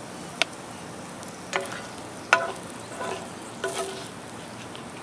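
A metal utensil knocks and clinks against a pan about five times, each knock ringing briefly, as shrimp and vegetables are stirred. Under it the food keeps up a steady sizzle.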